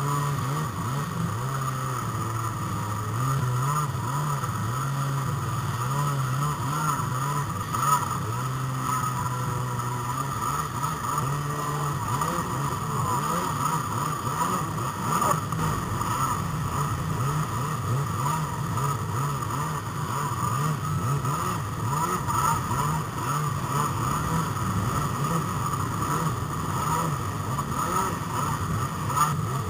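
Jet ski engines running on the water at speed, the engine note rising and falling as the throttle changes, over a steady rush of water and wind.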